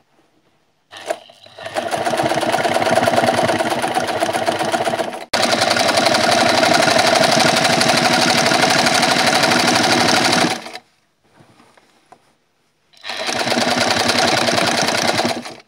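Sewing machine stitching fabric at speed, its needle running in a rapid, even patter. It runs from about a second in to about ten and a half seconds, stops for roughly two seconds, then starts again near the end.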